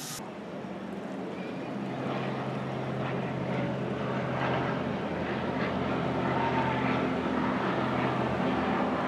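Steady low mechanical drone with a constant low hum over a noisy rush, slowly growing louder.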